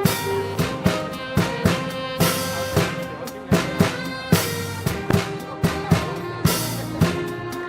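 Live band playing a social-dance tune: a drum kit keeps a steady beat of kick and snare strikes under held melody notes.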